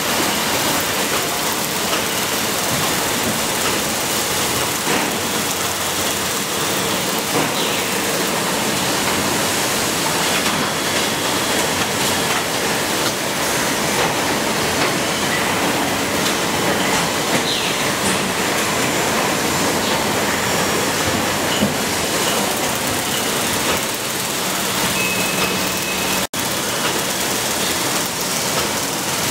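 Steady noise of an automated motor stator production line running: a dense hiss and clatter of machinery with faint scattered clicks and brief tones. The sound cuts out for an instant near the end.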